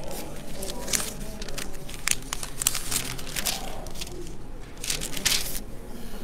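Sheets of paper rustling and crinkling as they are shuffled and sorted close to a microphone. There are a series of short, crisp rustles, the loudest about five seconds in.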